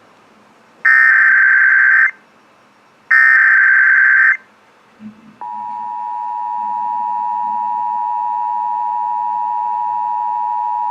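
Emergency Alert System SAME header: two bursts of screechy digital data tone, each a little over a second long, about a second apart. A few seconds in, the steady two-tone EAS attention signal starts and holds. Together they mark the start of a new alert, here a National Weather Service severe thunderstorm warning.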